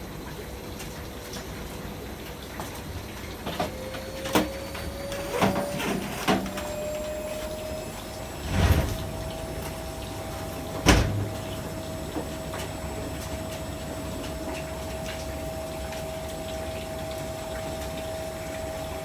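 AEG Öko-Lavamat washing machine running: a steady motor whine that rises a little in pitch between about four and seven seconds in, then holds, over a low rumble. Scattered knocks come through, with two heavier thumps around nine and eleven seconds in.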